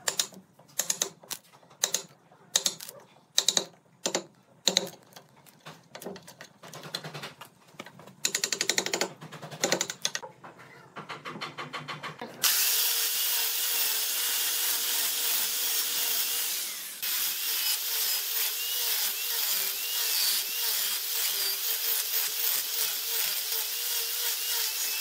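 Sharp, irregular knocks and rattles for about twelve seconds, then an angle grinder with a sanding disc starts suddenly and runs steadily, sanding the base of a spinning turned wooden piece, with a wavering whine over a hiss.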